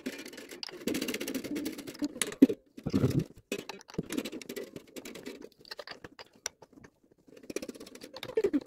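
Plastic string winder cranking a mandolin's tuning machines to slacken the strings: quick, uneven clicking and rattling from the winder and the gears. Underneath, the loosening strings ring and slide lower in pitch.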